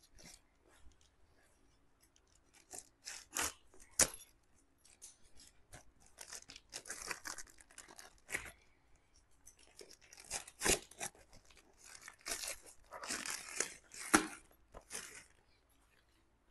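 Plastic parcel packaging being torn open and crinkled by hand: irregular rustling and ripping, with a few sharp louder snaps about four, ten and fourteen seconds in.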